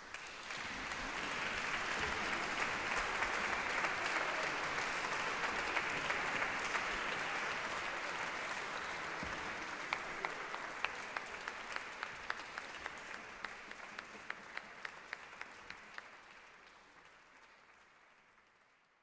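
Audience applauding at the end of an orchestral performance. The applause swells within the first couple of seconds, then thins from about ten seconds in, with single claps standing out, and fades away near the end.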